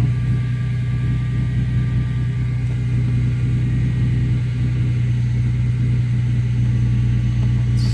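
A 1998 Ford Mustang's engine idling steadily with an even low hum.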